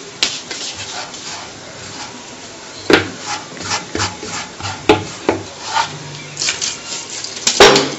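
A hand sweeping and rubbing loose grains of rolled semolina (berkoukes) across a tabletop: a dry scraping rustle, broken by a few sharp knocks.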